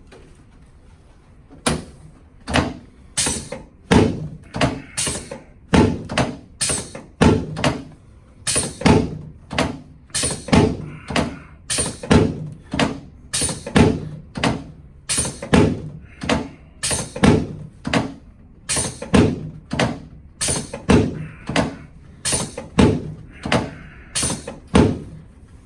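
A rapid, steady series of hard thumps during a chiropractic treatment, about two a second and some in close pairs, starting about two seconds in and going on for over twenty seconds.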